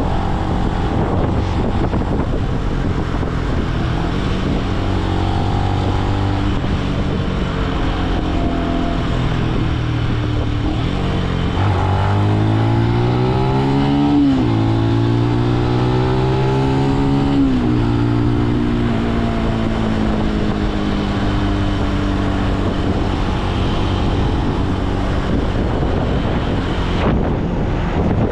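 A Benelli BN125 motorcycle's single-cylinder engine runs at a steady cruise under wind noise. About halfway through it revs up under acceleration, drops sharply at a gear change and pulls up again, then eases off as the revs slowly fall away.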